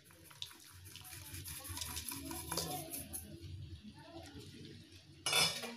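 Faint rustling and light clicks of grated jaggery being tipped into a steel pot of cooked rice batter, with a short, louder scrape or rustle a little after five seconds in.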